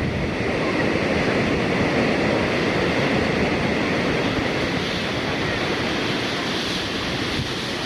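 Small waterfall and stream pouring over rocks: a steady, even rush of water.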